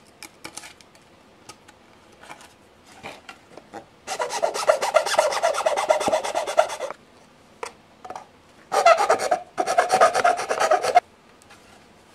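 Hand file rasping against the edge of a project enclosure: a few short scrapes, then a long run of quick back-and-forth strokes about four seconds in, a couple of light clicks, and two more runs of strokes near the end.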